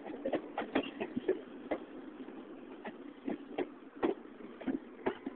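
R142 subway train moving slowly past at close range: a steady rumble of wheels and running gear with irregular sharp clicks and clacks as the wheels cross rail joints.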